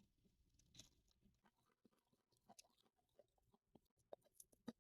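Faint mouth sounds of a child chewing a bite of samosa dipped in sauce: soft scattered clicks and smacks, with a couple of louder ones near the end.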